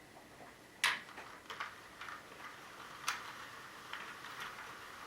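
Irregular sharp plastic clicks and ticks from the opened counter mechanism of a Sentro knitting machine as its little cog and drive wheel are moved by hand. The loudest clicks come about a second in and about three seconds in, with smaller ticks between.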